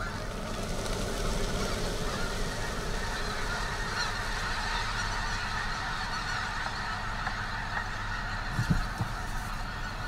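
A large flock of snow geese calling all at once: a steady din of overlapping honks as the flock lifts off and circles. There is a low hum underneath and a single short thump near the end.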